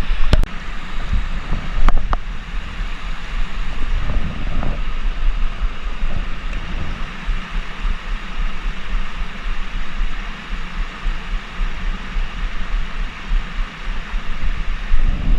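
Blizzard wind buffeting the microphone: a steady rush with a gusting low rumble, plus a few sharp clicks in the first two seconds.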